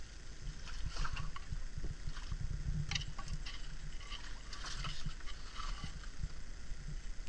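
Light knocks, creaks and rustles from a bamboo pole and bamboo raft being handled, scattered irregularly over a steady low rumble.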